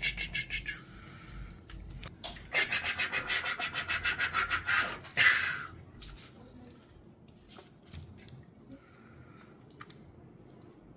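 Fast rhythmic rubbing on packaging, about eight strokes a second, in a short spell at the start and a longer one from about two and a half seconds in, ending in a loud sharp scrape about five seconds in. Scattered light clicks and handling noises follow.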